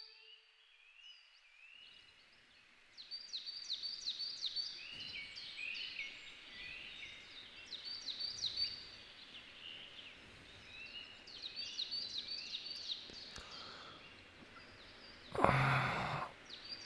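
Woodland birds singing, many short chirping notes repeating and overlapping, over a faint background hiss. Near the end a loud burst of noise lasts under a second.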